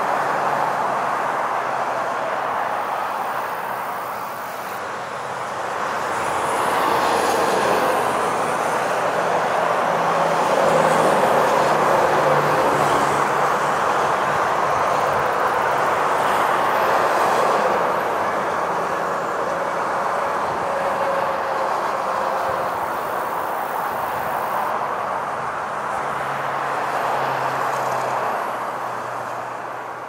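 Road traffic heard from the roadside: a continuous rush of tyre and engine noise from passing cars. It rises and falls over several seconds as vehicles approach and go by.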